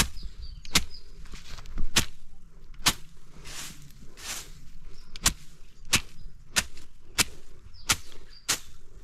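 A grass slasher, a long-handled hooked cutting blade, swung repeatedly through tall grass: about ten sharp swishing cuts, roughly one a second, with a gap and two softer swishes in the middle.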